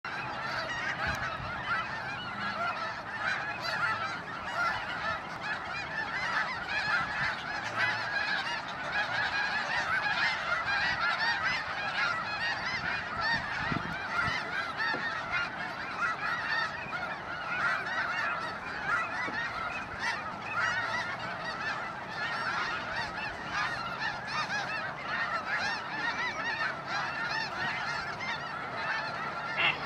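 A large flock of geese calling continuously, a dense chorus of many overlapping honks.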